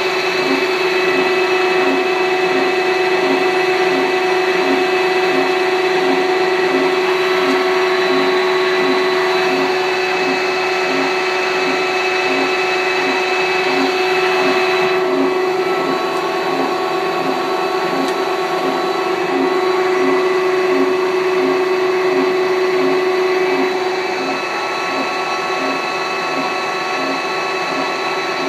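Harrison M500 centre lathe running with its chuck spinning. Its headstock drive gives a steady hum of several pitched tones over a regular throb a little faster than once a second.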